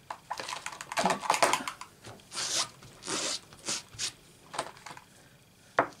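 Clear photopolymer stamp and acrylic stamp block being handled and put away: a run of short plastic rustling and peeling scrapes, then a sharp click near the end.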